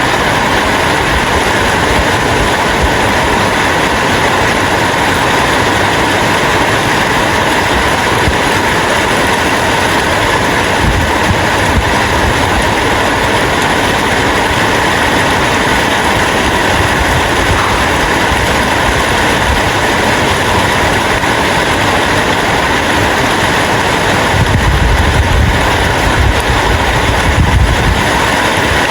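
Steady rain falling, an even, unbroken hiss; a low rumble swells in for a few seconds near the end.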